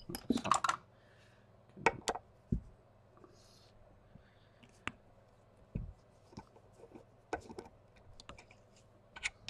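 Scattered clicks and knocks of a screwdriver and hands working at the casing of an industrial fragrance dispenser, prising at a panel. Two louder knocks come about two seconds in, then single clicks follow a second or so apart.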